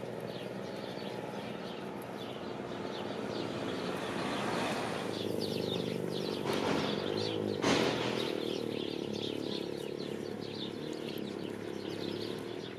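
Outdoor background of small birds chirping over a steady engine hum, with a motor vehicle passing around the middle and one short knock just before the eight-second mark.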